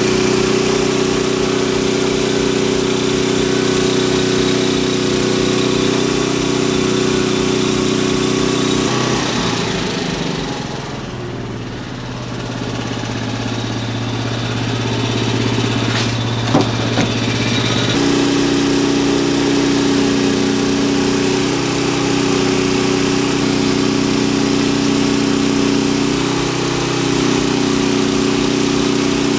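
Sawmill engine running at speed, dropping to a lower idle about nine seconds in and coming back up to speed about nine seconds later, with a sharp click shortly before it does.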